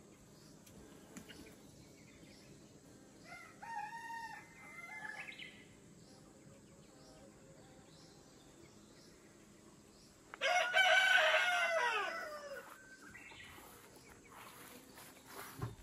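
A rooster crowing twice: a fainter crow about three seconds in, then a loud, drawn-out crow about ten seconds in that trails off downward at the end.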